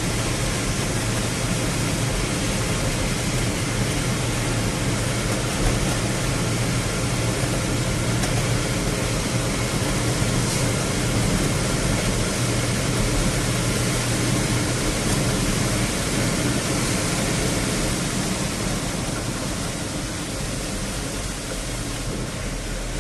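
Steady rushing noise of heavy rain, with a low vehicle engine hum underneath.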